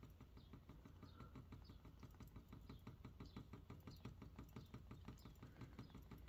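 Makeup sponge dabbing concealer onto the face: faint, rapid soft pats, several a second.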